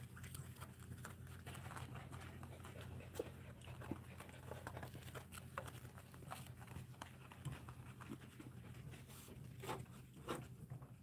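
Faint scuffling and light clicks of dachshunds moving about on floor mats, over a steady low hum.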